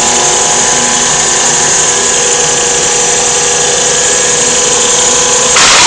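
Clarke EZ8 drum floor sander running, its electric motor and sanding drum giving a loud steady whine and rush, with a brief louder rush just before the end. The sander is in working order.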